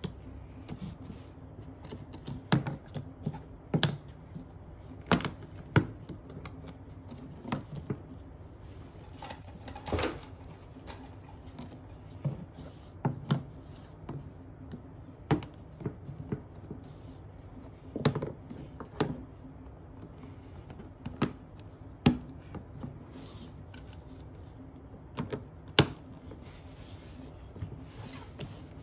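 Plastic toy train track pieces being handled and snapped together, making sharp clicks and knocks at irregular intervals a second or two apart, over a faint steady hum.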